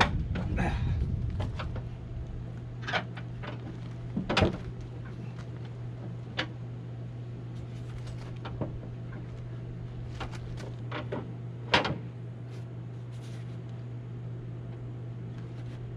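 Scattered clicks and knocks of a John Deere Gator's cargo bed being unlatched and tipped up, with two louder knocks about four and twelve seconds in, over a steady low hum.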